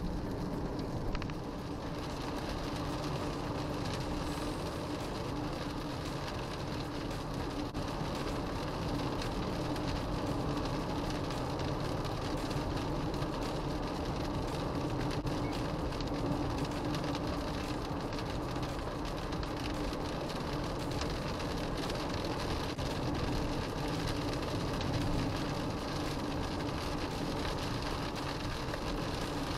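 Cabin noise inside a Subaru Forester X-Break with its 2.5-litre boxer engine, driving at expressway speed on a rain-soaked road: a steady hiss of tyres and spray with a low steady drone.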